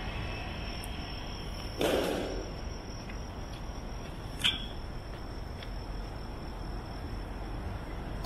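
Outdoor street ambience: a steady low background hum with a thin high tone held throughout, a brief loud noisy rush about two seconds in, and a single sharp click about halfway through.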